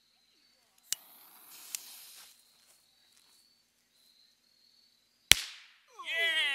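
A match cracker firecracker pushed into a pumpkin's shell is lit with a short fizzing hiss, then goes off about five seconds in with a single sharp bang, blasting open the jack-o'-lantern's eye.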